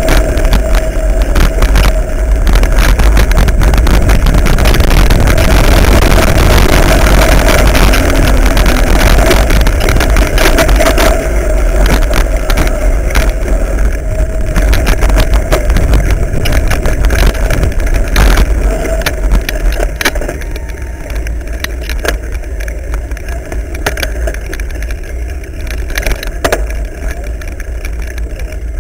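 Wind buffeting the microphone of a camera riding along on a mountain bike, with frequent knocks and rattles as the bike jolts over a bumpy dirt trail. It gets quieter about two-thirds of the way through.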